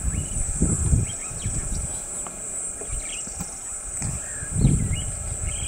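Steady high-pitched drone of insects, with short faint chirps scattered through it. Low rumbles on the microphone about a second in and again near the end are the loudest moments.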